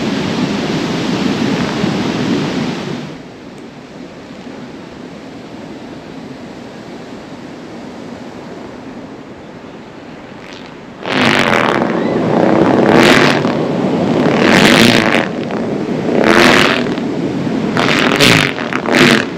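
Large kites catching the wind as they go up, their fabric flapping and buzzing in loud rushing bursts that come every second or two from a little past halfway. Before that there is a steady rush of wind that drops away after about three seconds.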